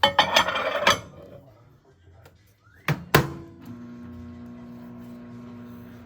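About a second of loud clatter and rustling, then two sharp clunks about three seconds in, after which a kitchen appliance starts with a steady electric hum.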